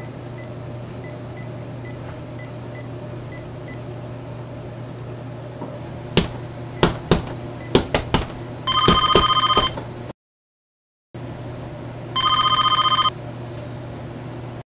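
A phone ringing with an electronic trill, two rings of about a second each, over a steady low hum. A few sharp knocks come just before the first ring.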